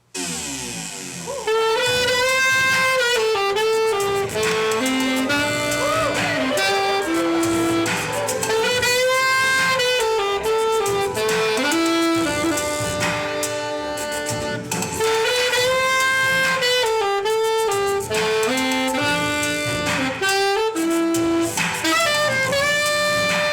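Saxophone playing a jazz melody in flowing phrases. It comes in abruptly at the start and grows louder about a second and a half in.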